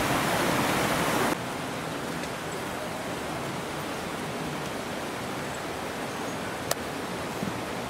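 Mountain river rushing over rocks, cutting off suddenly about a second in to a quieter, steady hiss, with one sharp click near the end.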